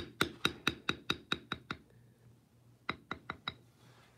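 Mallet striking a checkered round bevel stamping tool on damp tooling leather: a run of about nine quick sharp taps, roughly four to five a second, a pause of about a second, then four more taps. The bevel is being used as a lifter, raising the edges of the flower petals.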